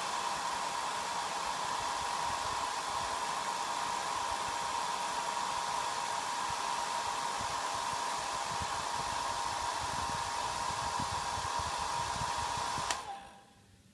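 Handheld hair dryer running steadily, a rushing blow with a steady whine, switched off near the end.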